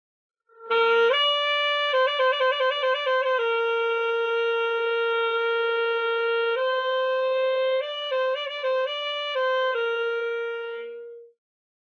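A solo wind instrument playing a slow melody, starting about a second in: quick trills and ornaments, a long held note, a step up with more trills, then a held note that fades out near the end.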